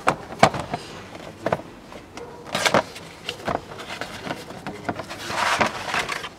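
Cardboard box of a new cabin air filter being handled and opened by hand: a string of light knocks and clicks, and a longer rustling scrape near the end.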